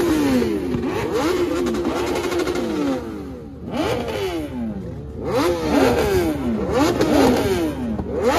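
Motorcycle engine revved over and over, each throttle blip rising quickly and falling away, several times in quick succession, with a brief lull about three seconds in.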